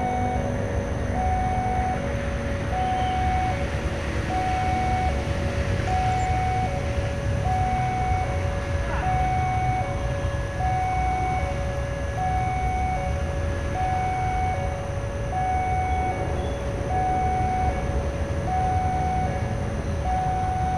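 Railway level-crossing warning alarm sounding steadily, a high and a low electronic tone alternating about every two-thirds of a second. Under it is a low rumble from a distant diesel train on its approach.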